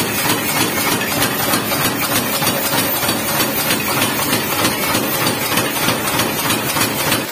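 Motor-driven blacksmith's power hammer running and pounding in rapid, even blows on the red-hot end of an oversized ship engine valve, flattening the hot steel.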